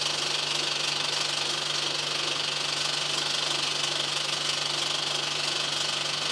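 A cinema film projector running: a steady, rapid mechanical clatter over a constant low hum.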